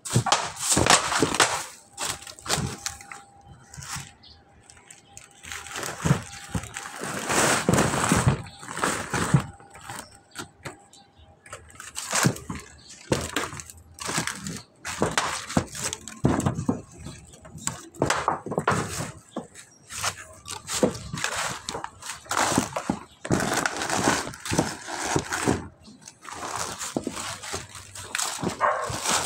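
Irregular rustling, crackling and knocks as dry leaves, a plastic sack and spiky kamansi fruits are handled and shifted on a corrugated metal roof.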